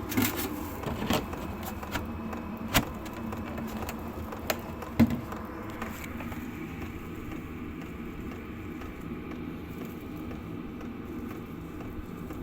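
Diesel air heater running steadily, its combustion-air intake fitted with a DIY muffler. A few sharp knocks or clicks sound in the first five seconds.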